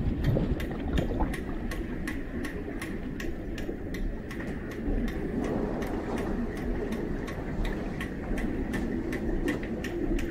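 Muffled underwater sound in a swimming pool: a low, steady rumble with a sharp ticking about four times a second.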